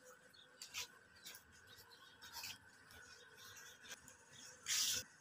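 Quiet footsteps and faint scuffs on a concrete floor, with a short louder scrape or rustle near the end.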